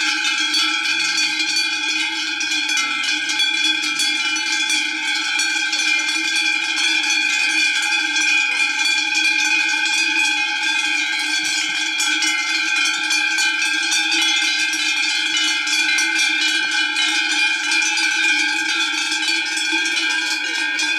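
Cowbells on a grazing herd of cattle ringing together as the cows move, a steady overlapping clanging at several pitches with no break.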